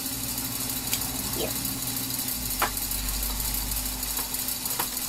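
Small plastic LEGO pieces being handled, giving a handful of sharp clicks and taps against the table, the loudest a little over halfway through, over a steady low hum.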